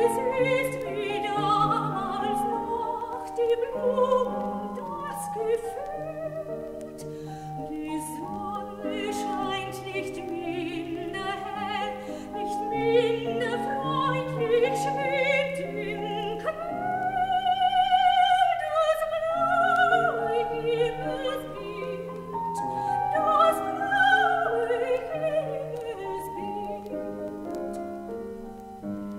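Classical soprano singing a German art song (Lied) with piano accompaniment, with wide vibrato on the held notes. Faint clicks of vinyl record surface noise run underneath.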